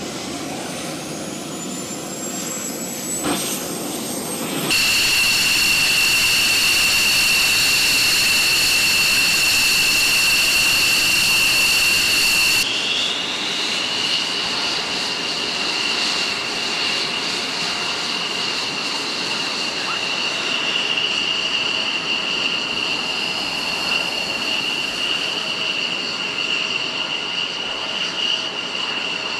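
F-16 fighter jet turbofan engines with a steady high-pitched whine and rushing hiss. A whine rises in pitch over the first few seconds as an engine spools up. The sound jumps louder about five seconds in and shifts again near the middle.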